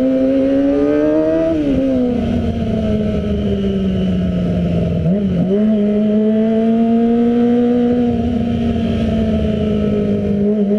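Kawasaki ZX-25R's 250 cc inline-four engine running through an Arrow full-system exhaust while riding. The revs climb for about a second and a half, then drop sharply and sag slowly. About five seconds in there is a brief dip and blip, after which the engine holds a nearly steady high pitch.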